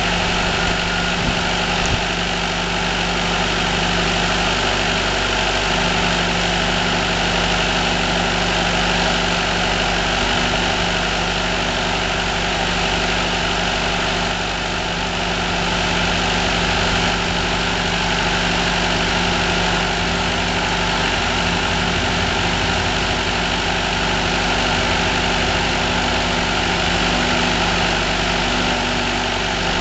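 Firewood processor's engine running steadily, with a brief dip in level about halfway through.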